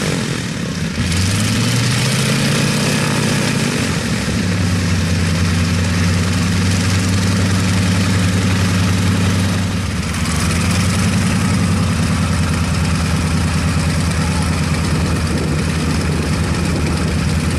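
Piston engine and propeller of a high-wing light aircraft running at low power as it taxis on grass. The pitch rises and falls over the first few seconds, then holds steady, with a brief dip about ten seconds in.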